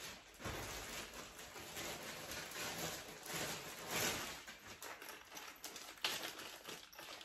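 Clear plastic packaging crinkling and rustling as it is handled and unwrapped, with a few sharper crackles.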